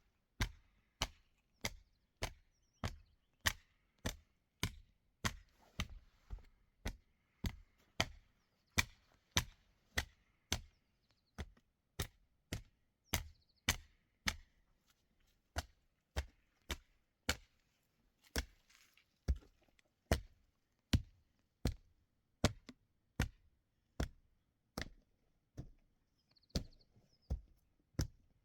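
Steady chopping: sharp blows of a blade into wood, evenly spaced at a little under two a second, keeping the same pace throughout.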